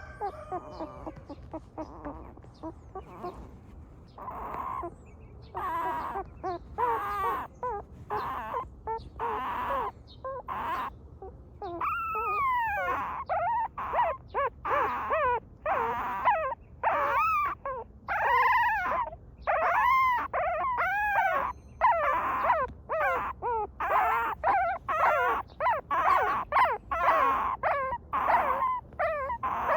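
Young puppies whimpering and crying in a string of short, high calls that rise and fall in pitch. They are sparse at first and come almost without a break from about four seconds in.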